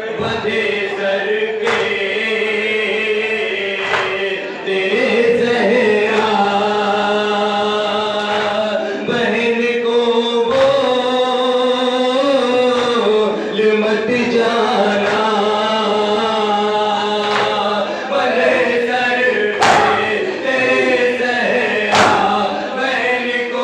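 Men's voices chanting a nauha, a Shia mourning lament, with long held, wavering notes through a microphone. A few sharp strikes about two seconds apart near the start and again near the end keep a slow beat, as of matam (chest-beating).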